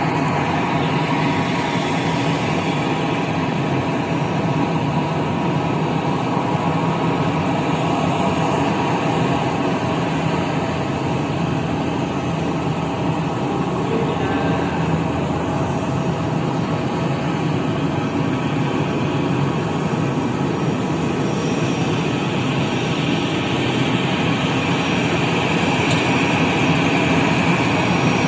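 Jet airliner's engines running steadily, growing a little louder near the end.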